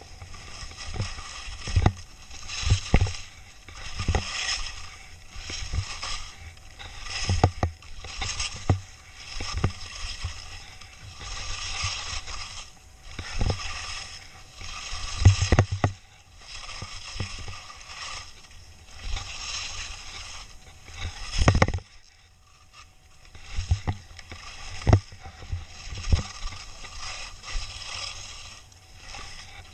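Skis scraping and hissing over snow through a run of quick turns down a mogul trail. A swell of scraping comes with each turn, about once a second, and low thumps come in between. Near two-thirds of the way through, the sound drops off briefly.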